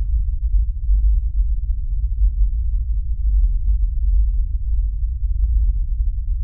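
A deep, steady low drone with nothing higher over it: a sound-design rumble in a film soundtrack.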